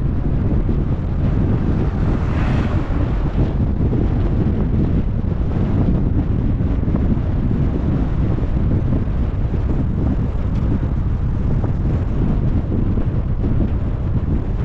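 Wind buffeting the microphone over the steady low rumble of a car driving, with a brief hiss about two and a half seconds in.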